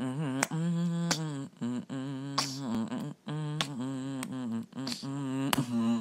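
A person humming a short wordless tune: a run of held, slightly wavering notes with brief breaks between them and a few sharp clicks in between.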